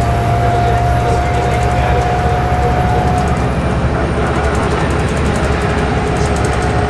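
Inside the cabin of a 1992 Stewart & Stevenson Apollo T-40 transit bus at freeway speed: its Detroit Diesel Series 50 EGR four-cylinder diesel and drivetrain running steadily under a constant road and tyre rumble. A steady whine fades out about halfway through.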